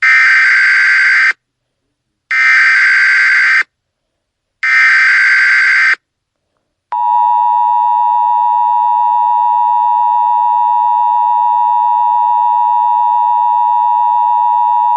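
Emergency Alert System opening: three short buzzy bursts of SAME header data tones, each about a second and a half long, then a steady two-tone attention signal that starts about seven seconds in. This is the sequence that opens an emergency alert broadcast, ahead of the spoken message.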